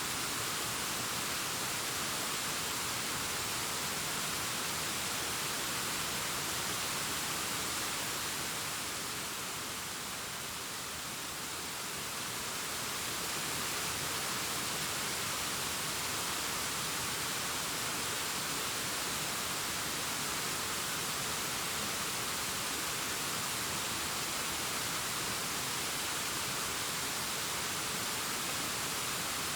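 Waterfall cascading down a rockface: a steady, even rushing hiss, briefly a little softer about ten seconds in.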